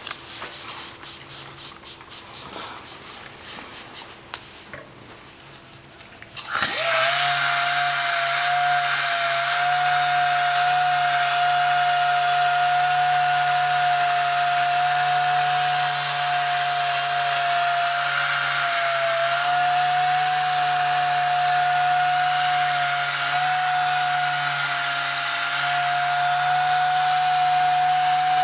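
Air-powered hand polisher with an abrasive pad starts abruptly about six and a half seconds in and runs with a loud, steady whine as it scours a brown deposit film off a water-wetted metal implanter door panel. Before it starts there are quieter rhythmic strokes, a few a second.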